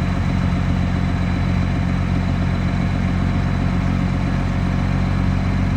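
Hyundai 215 excavator's diesel engine running at a steady speed.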